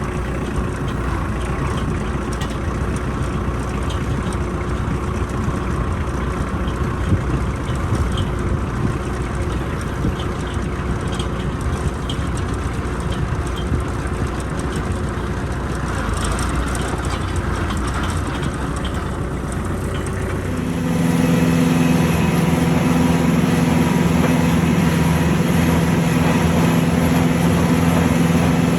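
An engine running steadily under heavy wind rumble on the microphone. About two-thirds of the way through the rumble drops away and a louder, steady engine hum takes over.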